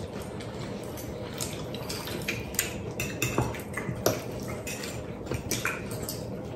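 Forks, knives and spoons clinking and tapping on ceramic plates as several people eat, in irregular short clicks.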